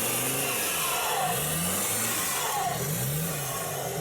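Off-road vehicle's engine revving up and down over and over, about once a second, as the vehicle works in deep mud.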